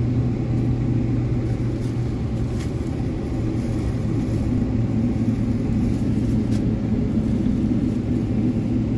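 Cabin noise inside a Boeing 777 rolling on the runway: a steady low jet-engine drone with a rumble.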